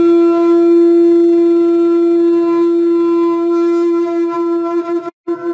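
Conch shell (shankh) blown in one long, steady blast at the close of an aarti. Near the end the tone breaks off briefly, then comes back wavering.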